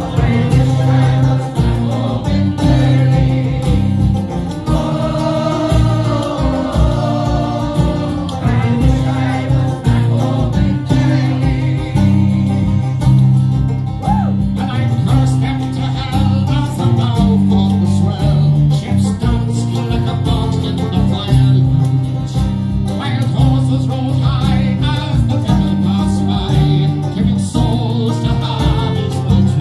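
Irish folk band playing live through a PA: fiddles, acoustic guitar and a steady bass line, with singing.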